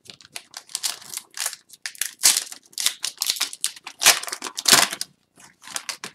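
Crinkling and tearing of an Upper Deck hockey card pack's wrapper as it is handled and ripped open by hand: a quick run of crackly rustles, loudest about two seconds in and again between four and five seconds in.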